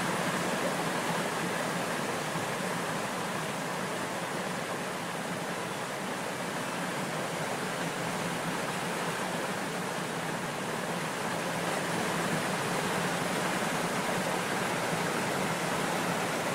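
Steady, even rushing hiss with no tones or rhythm, unchanging throughout.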